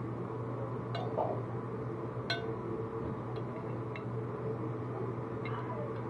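A metal spoon clinks against a ceramic plate several times, about five light clinks, the sharpest a little past two seconds in, over a steady background hum.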